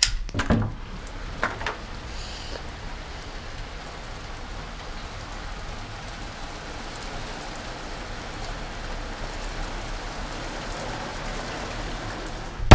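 Steady rain falling on a wet tarmac car park, heard through an open doorway. A few clicks sound as the door is released and opened near the start, and a single sharp knock comes at the very end.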